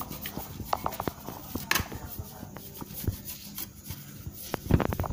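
Irregular light taps, knocks and brushing scrapes on a laptop's plastic display lid as a paintbrush and hand sweep an ants' nest out of it, with a louder cluster of knocks near the end.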